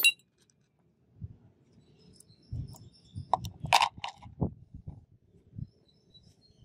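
Small steel hydraulic-jack parts clicking as they are set down on a concrete floor and handled near a plastic cup: a sharp click at the start, then several quick clicks about three to four seconds in, with soft handling thumps between.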